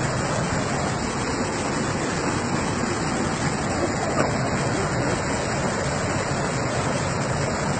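Waterfall: water pouring and crashing in a steady, unbroken rush.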